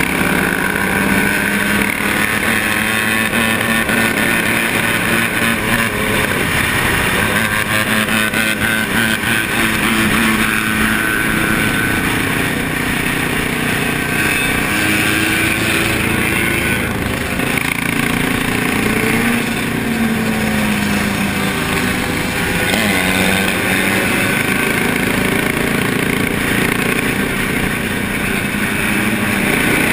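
Motorcycle engines running at road speed with wind rushing over a helmet-mounted camera; the engine pitch rises and falls a few times with the throttle.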